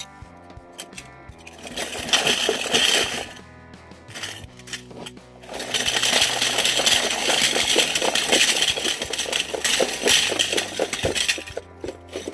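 Dozens of metal pin-back buttons pouring out of a tipped plastic compartment box and clattering onto a wooden floor: a short burst about two seconds in, then a longer one from about six to eleven seconds.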